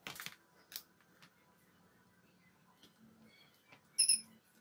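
Short rustles and clacks of small tools handled on a workbench, then about four seconds in a brief high squeak and click as a hot glue gun's trigger is squeezed.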